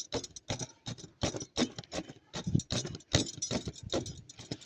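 A knife cutting through the woven cords of a charpai (string cot): an irregular run of sharp snips and clicks, several a second.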